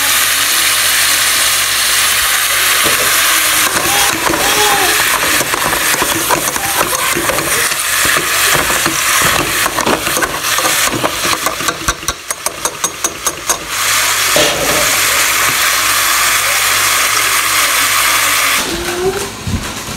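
Ground beef sizzling in a frying pan while a utensil breaks it up and turns it. Through the middle stretch comes a run of quick scraping taps of the utensil against the pan.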